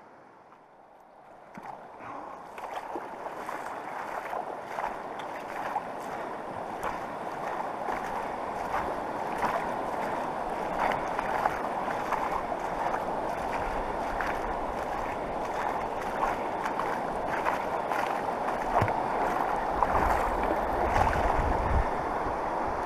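Highwood River running fast and high: a steady rush of water that grows louder after the first couple of seconds, dotted with scattered sharp clicks and splashes. Low wind rumble on the microphone near the end.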